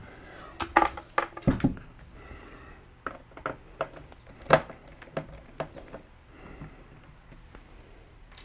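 Scattered light clicks and knocks of a screwdriver and a particleboard drawer being handled on a wooden workbench while the drawer's side-track screws are taken out. A low thump comes about a second and a half in, and a sharper knock about halfway through is the loudest.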